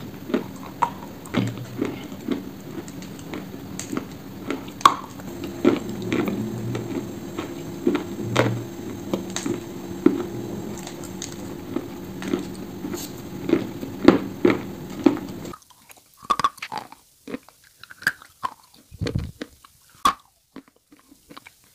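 Close-up biting and chewing of dry Ural black edible clay: sharp crunches every second or so, over a steady low hum. About fifteen seconds in, the background drops away and the crunches come sharper and more isolated, right at the microphone.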